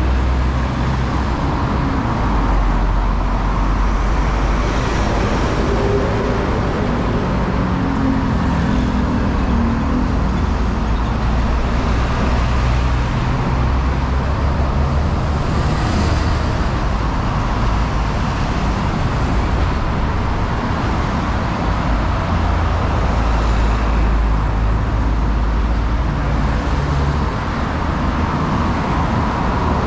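Steady traffic noise from a busy city road, with vehicles running past and a continuous low rumble; an engine passes close about a third of the way in.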